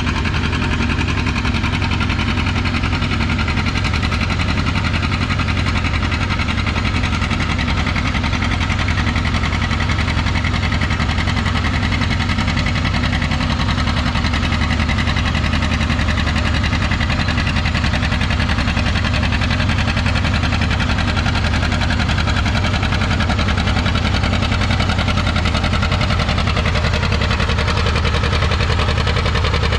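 John Deere 830's two-cylinder diesel tractor engine running steadily under load while pulling a weight sled.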